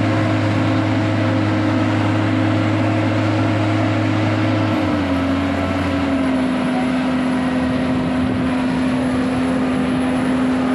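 Continuous flight auger piling rig's diesel engine running steadily, a loud droning hum. Its pitch drops slightly about five seconds in, then holds.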